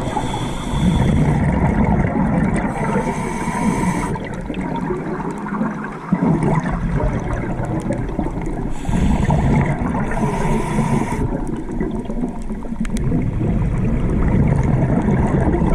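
Scuba regulator breathing heard underwater: hissing inhalations alternating with bubbling, gurgling exhalations, repeating over several breaths.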